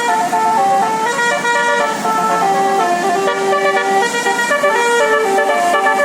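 Basuri telolet bus horn playing a melody: a continuous run of held horn notes that step up and down in pitch.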